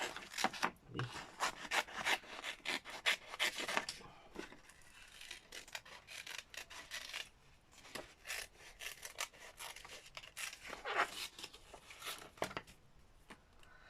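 Paper being cut: runs of short, quick cutting strokes with rustling of the page, dense at first, then coming in smaller groups with brief pauses.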